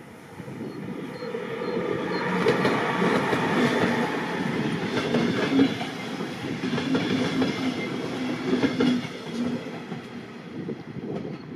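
A train passing close by: its noise builds over the first couple of seconds, the wheels clatter over rail joints, and it eases off toward the end.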